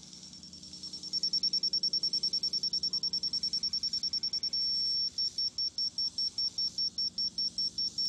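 Laser level receiver beeping as it is moved along a post to find the rotating laser's beam: a high beep that pulses rapidly, becomes a steady tone for a moment about four and a half seconds in, then pulses more slowly. The steady tone signals the receiver sitting on the laser's level line.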